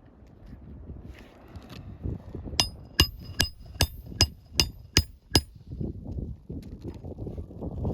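Hand hammer driving a roofing nail through an asphalt shingle: eight quick, evenly paced strikes with a metallic ring, about two to three a second, in the middle of the stretch.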